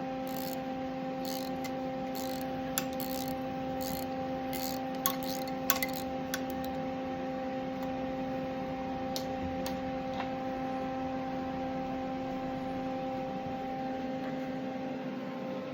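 Hand ratchet clicking, with light metal taps, in scattered short bursts, mostly in the first half. A steady hum runs underneath.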